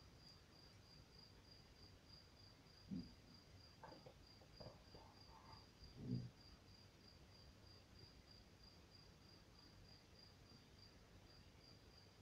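Faint cricket chirping steadily, a high thin note repeated about four times a second. Two soft low thumps come about three and six seconds in.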